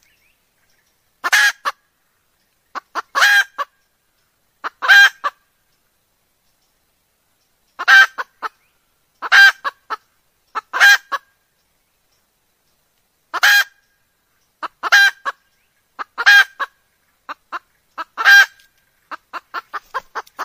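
Junglefowl hen calling: a series of loud, pitched calls about one to two seconds apart in short groups, each trailed by a few short clicks, ending in a quick run of short notes. It is a hen's call of the kind used as a lure to draw in wild junglefowl.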